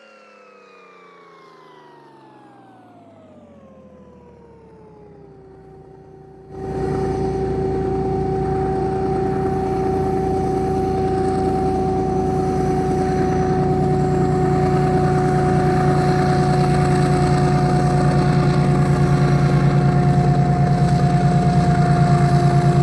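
Faint whine falling steadily in pitch, then about six seconds in an abrupt cut to a GE ES43BBi diesel-electric locomotive working hard to haul a loaded train up a grade. Its engine rumbles low under a steady whine, growing slowly louder.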